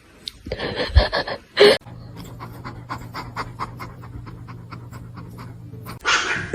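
A pet panting rapidly, about five short breaths a second, over a steady low hum, after a few short noisy sounds at the start.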